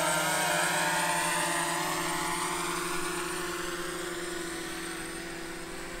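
DJI Mavic Mini drone's propellers whining in several steady tones, the pitch shifting as it manoeuvres, growing gradually fainter as the drone flies away.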